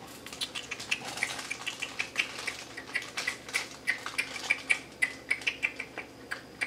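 Plastic toy packaging being worked open by hand, giving an irregular run of small crackles and clicks, several a second.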